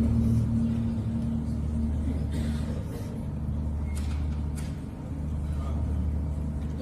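Steady low hum of a mosque's hall and sound system during a pause in the prayer recitation, with a held low tone from the voice dying away in the first second or so and a few faint clicks.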